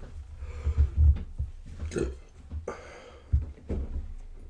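Low thumps and bumps on a wooden tabletop, picked up through a microphone standing on the table while pastry pieces are handled, with a couple of short breathy mouth noises about two seconds in.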